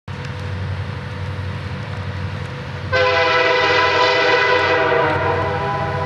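Diesel freight locomotive's air horn sounding one long chord of several notes starting about three seconds in, sounded as the train approaches a grade crossing, over the steady low rumble of the train.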